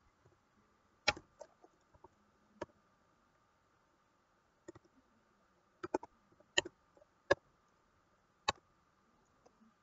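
Computer keyboard keys pressed one at a time: about nine or ten short, sharp clicks at irregular intervals, as short numbers are typed and Enter is pressed.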